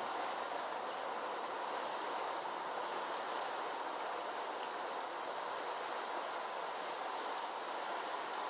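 Steady rushing of a flooded creek's water.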